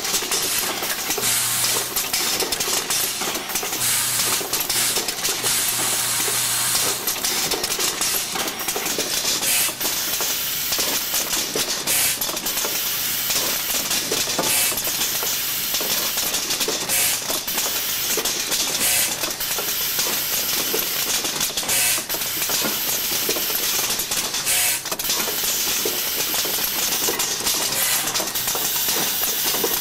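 Pneumatic automated assembly machine running: a steady hiss of compressed air, with rapid clicking and clattering from the grippers and small metal parts, and a low hum that comes and goes from the vibratory bowl feeder.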